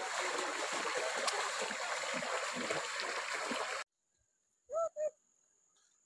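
Water splashing and rushing as people wade through a shallow rocky stream, cut off abruptly after nearly four seconds. About a second later come two short hoot-like calls.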